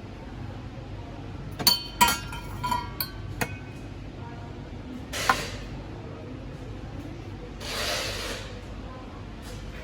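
Glassware clinking several times in quick succession, with short ringing tones, followed by two brief rushing, hissing noises.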